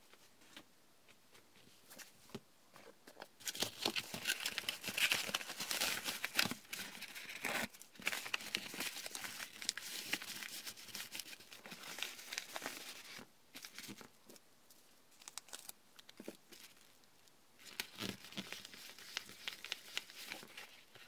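Kraft padded paper mailer being handled: crinkling and tearing paper sounds as its flap is folded and pressed shut by hand, then a sticker pressed on. Quiet for the first few seconds, rustling for about ten seconds, a lull, then more rustling near the end.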